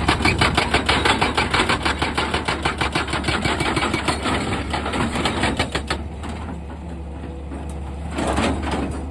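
Excavator running, its engine droning steadily under a fast, even clatter of about six knocks a second. The clatter stops about six seconds in and comes back briefly near the end.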